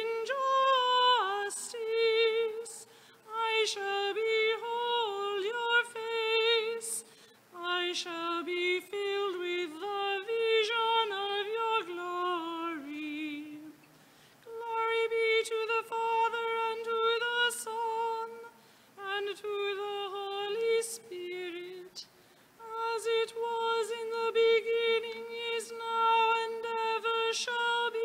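A cantor chanting the Entrance Antiphon and psalm verses in one voice, long phrases sung mostly on a single reciting note with short breaks between them.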